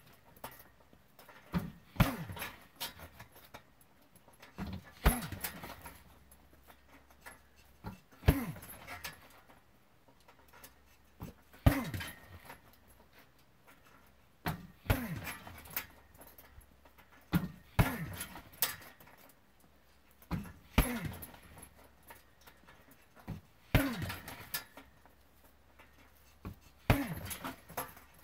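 Kicks landing on a hanging heavy bag, about one every three seconds, nine in all. Each is a sharp thud followed by a brief rattle and a short sound sliding down in pitch.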